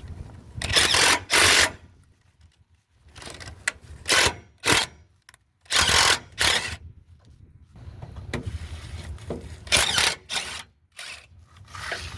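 A power tool working in short bursts, about eight to ten of them with brief pauses between, loosening the rusty 15 mm nuts on a fuel-tank bracket.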